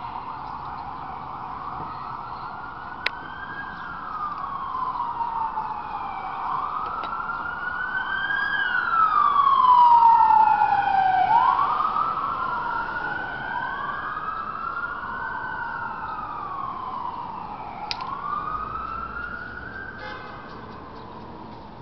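Emergency vehicle siren wailing, its pitch rising and falling slowly in long sweeps that overlap at times; it grows louder to a peak about halfway through, then fades away. A couple of faint sharp clicks come through as well.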